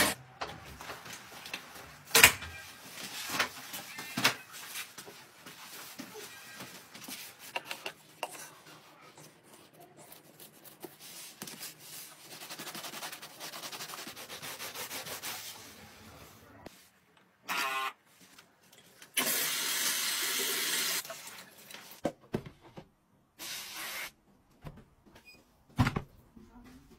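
Sponge scrubbing a sneaker with shoe cleaner, a steady rubbing. Sharp clicks and knocks come before it, and a loud hissing burst about two seconds long follows.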